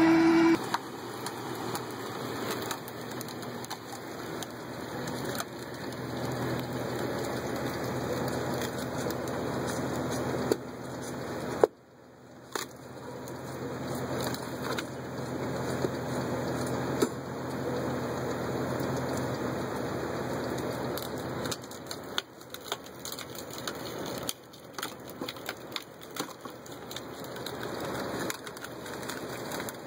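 Engine-driven firewood splitters at work: a steady engine hum under an even hiss, with scattered sharp cracks of wood splitting. The sound drops out briefly about twelve seconds in, where a tractor-driven log splitter gives way to a screw-cone splitter turned by a vehicle's wheel hub.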